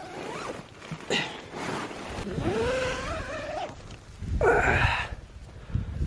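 Nylon tent fabric rustling and being handled as someone climbs out of a small tent, with a drawn-out sliding pitched sound in the middle and a loud rasp about four and a half seconds in.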